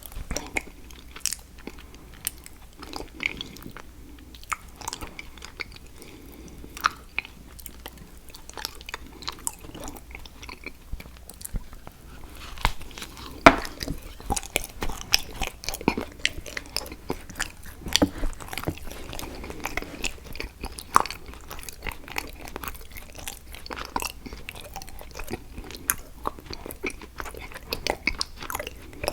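Close-miked biting and chewing of chocolate, with many sharp snaps and crunches, the sharpest about halfway through.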